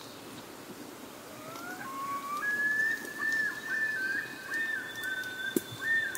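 Common loon calling across the water: a call that glides up over about a second, then holds a high note that wavers up and down in short steps.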